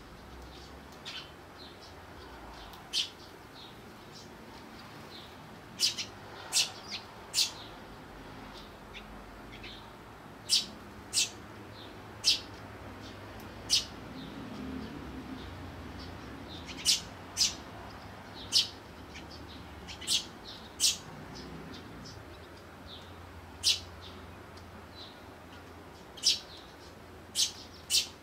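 Eurasian tree sparrows chirping: about twenty short, sharp, high chirps at irregular intervals, some coming in quick pairs or threes.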